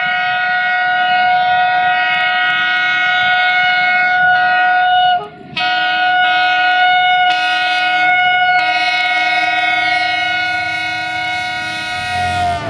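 Horn of the diesel locomotive 64-1357-4 sounding two long blasts: the first lasts about five seconds, and after a short break the second is held for about seven more. Near the end its pitch drops slightly as the locomotive passes.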